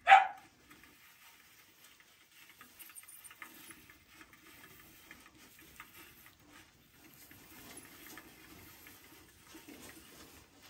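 Faint pattering and rustling with small scattered ticks from baby hedgehogs being handled and moving about on wood-shaving bedding. A short, sharp sound right at the start is the loudest thing.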